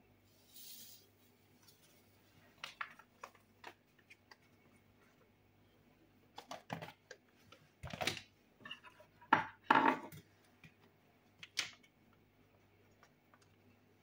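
Scattered light knocks and clatters of ingredient packets and containers being handled and set down on a kitchen countertop, the busiest stretch a little past the middle, with a short rustle about nine and a half seconds in.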